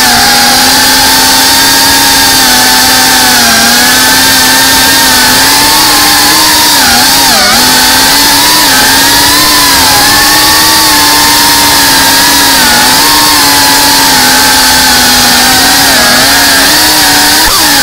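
Geprc Cinelog 35 cinewhoop's brushless motors and ducted propellers whining in flight, heard close from the onboard camera: a loud, steady buzzing whine whose pitch dips and recovers briefly with throttle changes, most clearly about seven seconds in.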